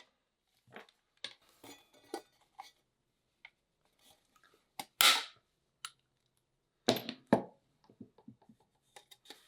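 Aluminum rivets being set through an aluminum-flashing lampshade: a string of small metallic clicks and knocks. There is a sharp snap about five seconds in and two more close together about two seconds later.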